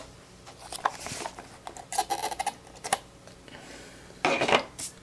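A sealed trading-card box being cut open and handled: scattered clicks, scrapes and rustles of packaging, with a longer scraping rustle near the end.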